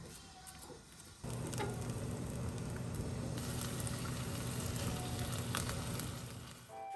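Squid, garlic and green onions sizzling in oil in a frying pan while a silicone spatula stirs them. The frying turns louder and steadier about a second in.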